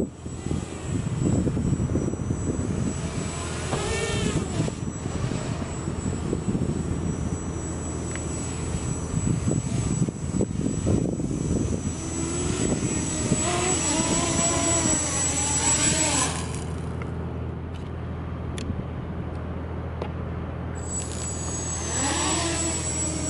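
Walkera Runner 250 racing quadcopter's brushless motors buzzing in flight, the pitch surging up and down in swells as the throttle is worked. Past the middle the high whine drops away for a few seconds while the quad sits on the grass, then the motors spin back up near the end.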